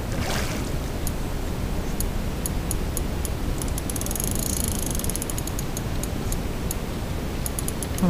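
A fishing reel's drag clicking irregularly, with a brief whirr a little after four seconds as a hooked fish takes line, over a steady rumble of wind and water. A short splash from the fish comes right at the start.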